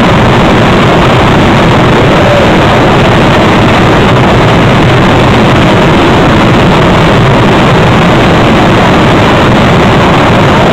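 Continuous dense rumble of a fireworks barrage, loud enough to overload the recording so no single bang stands out.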